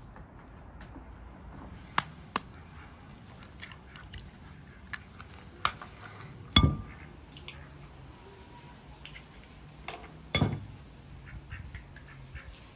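Eggs tapped against the rim of a glass bowl and cracked open: a few sharp taps, and two louder knocks, one with a brief glassy ring.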